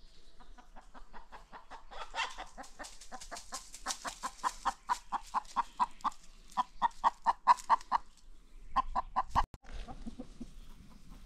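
Free-range chickens clucking in a rapid, even series of short notes, about four a second. It gets louder towards the middle, breaks off briefly about eight seconds in, then gives a few more clucks.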